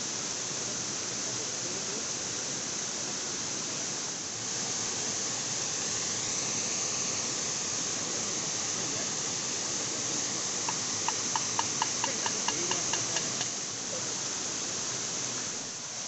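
Rushing water of a small rocky waterfall pouring into a pool, a steady hiss. About eleven seconds in, a short run of rapid, evenly spaced high pips, about four a second, sounds for under three seconds.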